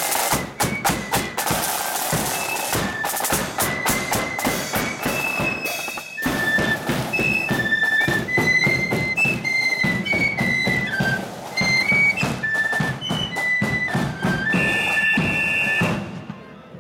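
Marching flute band playing a tune, high flute melody over a steady beat of drums. The music stops abruptly near the end.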